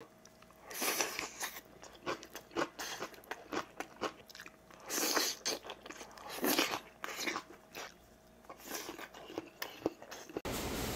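Close-miked chewing and biting of a man eating rice and side dishes, with irregular wet mouth clicks and several louder noisy bites. About ten seconds in it cuts off suddenly to a steady background hiss.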